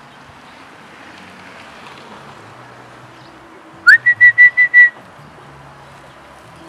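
A person whistling to call a puppy: a quick upward-gliding whistle that runs into about five short, evenly spaced notes at one high pitch, about four seconds in.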